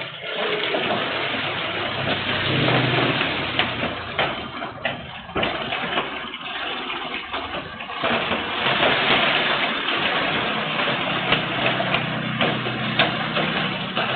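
Heavy rain and gusting wind picked up by a CCTV camera's microphone, with a constant patter of drops striking close by. The storm swells louder a couple of seconds in and again about eight seconds in.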